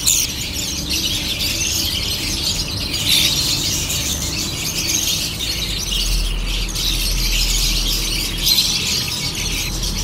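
Budgerigar chick squealing and chittering continuously as it begs while being syringe-fed.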